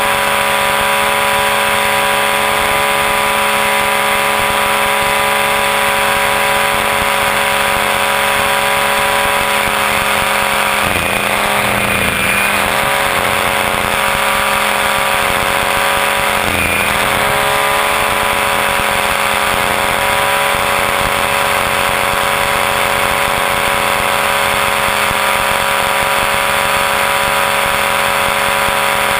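Align T-Rex 500 electric RC helicopter heard from a camera mounted on it: the steady high whine of its brushless motor and gears with rotor noise. The pitch sags and recovers twice, about 11 and 16 seconds in, as the rotor is loaded in mild 3D manoeuvres.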